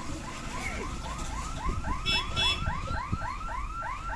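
Electronic warning siren at a railway level crossing, repeating a short rising whoop about three to four times a second, signalling that the gate is closing for an approaching train. Two short high-pitched beeps cut in about halfway through, over a low background rumble.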